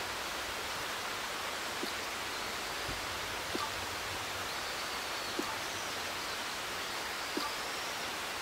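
Steady forest ambience: an even rushing hiss, with a soft tick about every two seconds and faint, thin, high calls.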